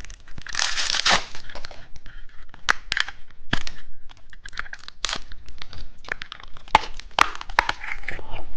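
Plastic candy packaging being crinkled and torn open by hand: irregular rustling with many sharp clicks and snaps.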